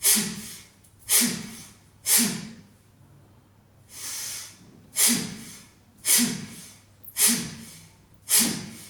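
A man doing a yogic breathing exercise: forceful breaths through the nose, each one a sharp rush of air that dies away quickly, about one a second. There are seven such breaths, with a softer, slower breath about four seconds in.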